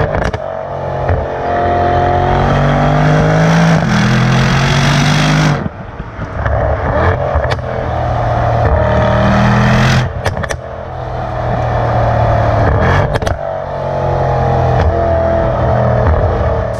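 Mercedes-AMG E63 S's twin-turbo V8 accelerating hard through the gears in several pulls, its pitch rising and then dropping sharply at each upshift, with sharp cracks around the shifts.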